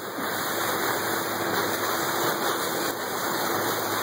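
Steady rushing noise of sea water and wind around a boat, with a faint steady low hum underneath.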